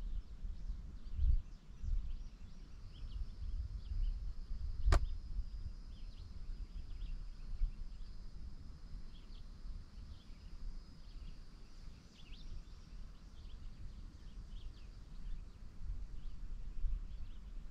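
Summer outdoor ambience: wind gusting on the microphone, a faint steady high insect drone, and scattered short bird chirps. A single sharp click sounds about five seconds in.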